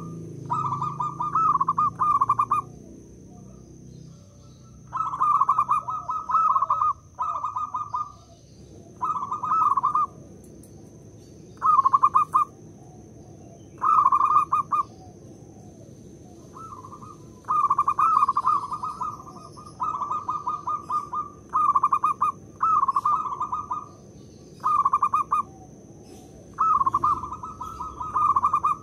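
Zebra dove (perkutut) cooing its song, a string of quick bubbling phrases repeated one after another with short pauses between them.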